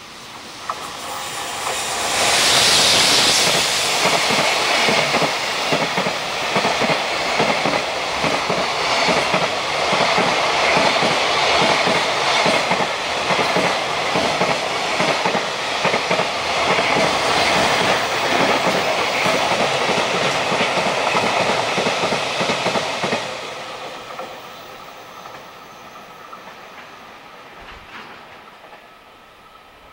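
A JR Freight EF200 electric locomotive passes at speed, followed by a long train of container flat wagons whose wheels clatter rhythmically over the rail joints. The sound drops away sharply about 23 seconds in, leaving a faint rumble.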